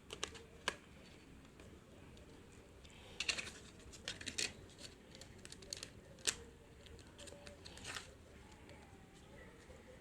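Scattered light plastic clicks and taps from a smartphone being handled, several in a quick cluster about three seconds in and a sharper single click a little past the middle.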